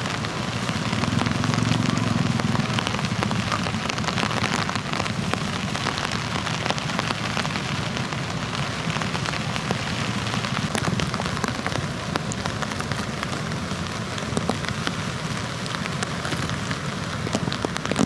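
Steady rush of strong onshore wind and breaking surf, with a crackling hiss throughout.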